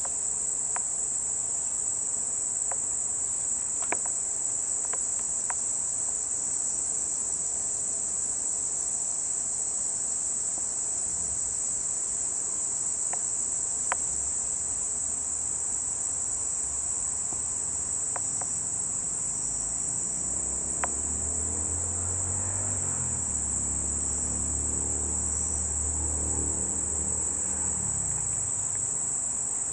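Steady, high-pitched chorus of insects that runs on without a break. A few faint clicks fall in the first half, and from about halfway in a low hum of several pitches rises and falls.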